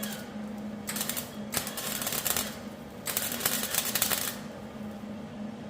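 Miller MIG welder tacking thin 18-gauge sheet metal at low heat and high wire speed: three short bursts of crackling arc, the last about a second long, over a steady low hum.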